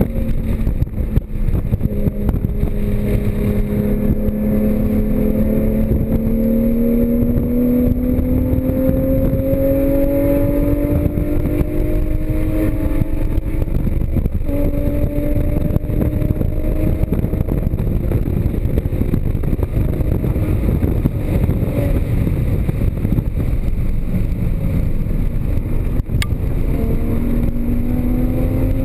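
Porsche Cayman GTS flat-six engine pulling hard at track speed, its pitch climbing slowly for about twelve seconds. It drops back after a shift near the middle and climbs again near the end. Heavy wind and tyre noise runs under it.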